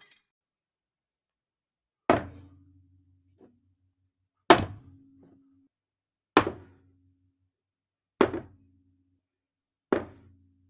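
Glass cup knocked down onto a table five times, about every two seconds. Each knock is sharp and dies away quickly with a brief low ring.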